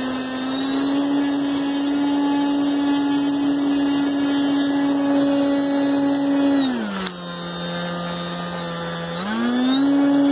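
Electric motor and propeller of an RC Cessna model airplane, 1.1 m wingspan, running at steady throttle while held on the ground, a high whine. About two-thirds of the way through the throttle is pulled back and the pitch drops for a couple of seconds, then it is throttled up again to the same pitch.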